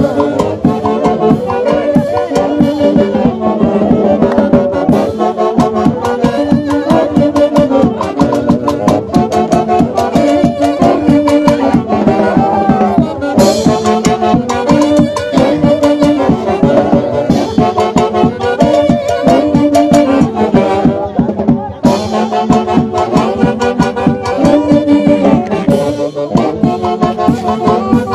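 Loud live festive band music with wind instruments over a steady, driving dance beat.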